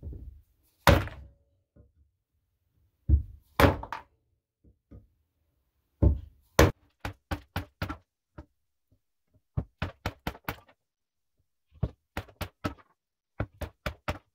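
Wooden mallet striking a wood chisel to pop out the waste blocks between saw relief cuts in oak. A few heavy, separate blows come first, then runs of quicker, lighter taps at about three or four a second.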